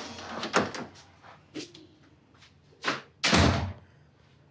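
A few separate knocks and thuds, the loudest a heavy slam about three seconds in.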